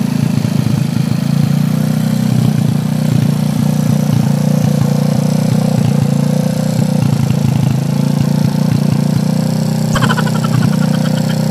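Motorcycle engine of a moto araro idling steadily through a newly fitted aftermarket 'bang-bang' exhaust muffler, a loud, even run of rapid exhaust pulses.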